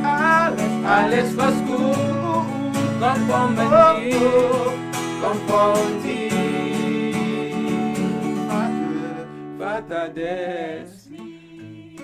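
Acoustic guitar strummed as men's voices sing a worship song. The music thins out about nine seconds in and drops away near the end as the song closes.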